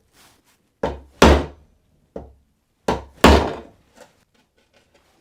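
A hammer strikes a screwdriver held against a snowboard's steel edge, knocking the unglued edge back into place. There are two pairs of blows about two seconds apart, each a lighter tap followed by a heavier whack, with a couple of softer knocks between them.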